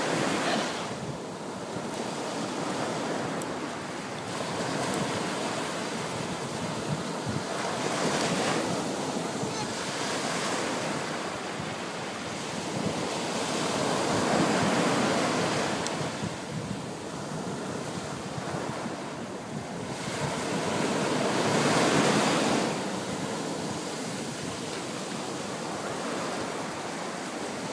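Ocean surf breaking and washing in, swelling louder every several seconds as waves come in, with wind buffeting the microphone.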